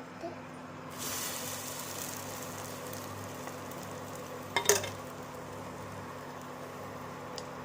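Egg-dipped bread frying in ghee in a hot pan, sizzling steadily from about a second in, with one short sharp clatter about halfway through.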